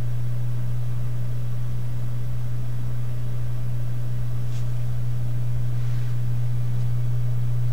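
Steady low hum of a bare hard disk drive spinning during a benchmark's burst read test, pretty quiet, with a faint click about four and a half seconds in.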